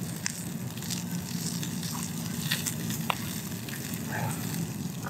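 Wood campfire burning with occasional sharp pops and crackles, and turkey sizzling on a grill grate over the flames.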